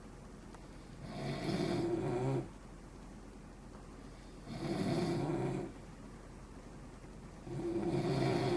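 Men snoring in their sleep: three snores, each lasting about a second, coming about three seconds apart.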